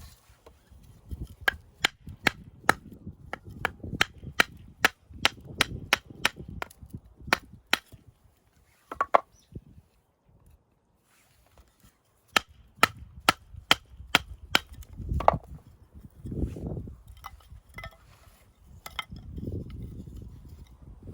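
A rapid run of sharp knocks, about three a second, that breaks off for a few seconds and then resumes, with low rumbling noise between the knocks.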